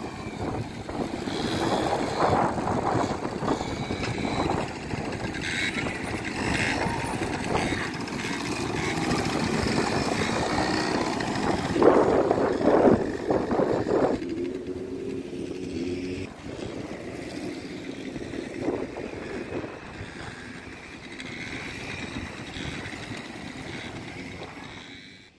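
Small children's quad bikes driving around a sand track, their running noise steady throughout; one passes close and loudest about twelve seconds in, then the sound fades off toward the end.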